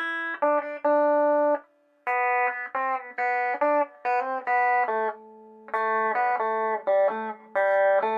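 Instrumental guitar music: a guitar plucking quick runs of single notes that ring on, in short phrases with brief pauses between them.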